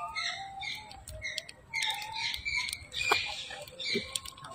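Macaques squeaking and chirping: many short, high calls in quick succession, with a few soft knocks mixed in.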